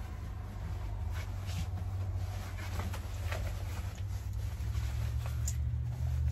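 Cloth rustling and light handling sounds as a pair of overalls is pulled on and the straps adjusted, over a steady low hum.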